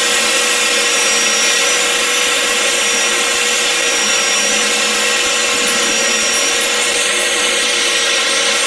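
Hot air rework gun blowing a steady rush of hot air with a faint steady whine, reflowing a small chip back onto a tablet motherboard.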